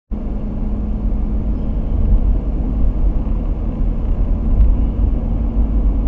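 Steady low rumble of a car driving on a highway, engine and tyre noise heard from inside the cabin, with a steady low hum through it.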